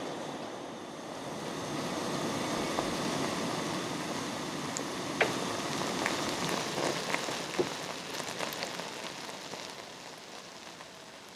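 Ginger-flavoured sugar syrup bubbling at a boil in a pot: a steady frothy hiss with scattered small pops, dying down over the last few seconds.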